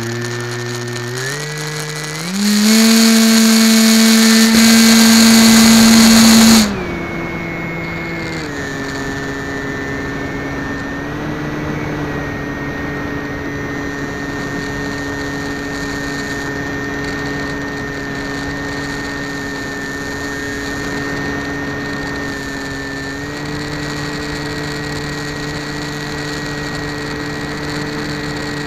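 Onboard sound of an FPV model aircraft's motor and propeller: the whine steps up in pitch as the throttle opens for takeoff, runs at full throttle with a loud rushing hiss for about four seconds of the climb, then drops back to a steady cruise whine.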